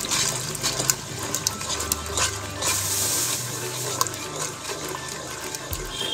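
Thin milky korma sauce sloshing as a plastic spoon stirs it round a non-stick pan, with scattered clicks and scrapes of the spoon against the pan.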